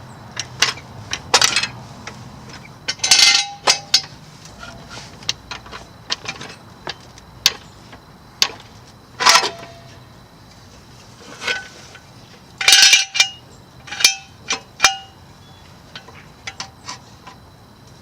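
Irregular metallic clanks, clinks and knocks of steel parts and tools being handled during Miata subframe installation on a floor jack and jack stands. Some strikes ring briefly, and the loudest clusters come about three, nine and thirteen seconds in.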